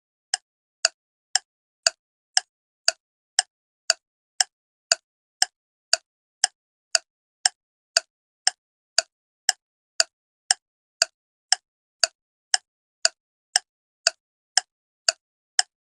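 Steady clock-like ticking: short, evenly spaced pitched clicks, about two a second, with silence between them.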